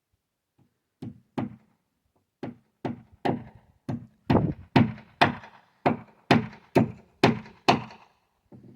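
Hammer driving nails into wooden framing: two light setting taps, then a steady run of heavier blows about two a second that grow louder.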